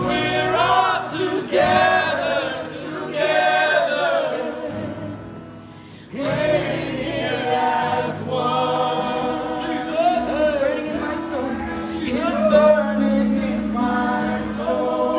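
A worship song performed live by a band, with a female lead singer and a crowd of voices singing along. The music drops back briefly and comes in again strongly about six seconds in.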